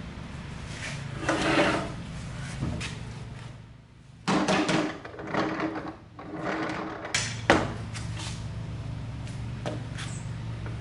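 Wooden board being handled: several short scrapes and knocks of wood, with one sharp knock about seven and a half seconds in, over a steady low hum.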